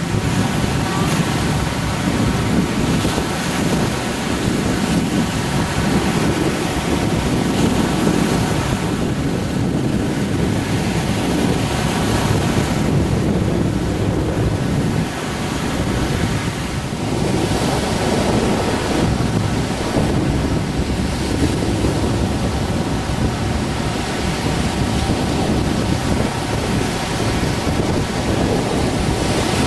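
Rough Baltic Sea surf breaking steadily on the shore, with wind buffeting the microphone.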